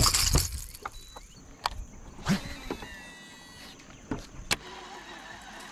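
A few sharp, scattered knocks and clicks of fishing gear being handled on a bass boat's deck.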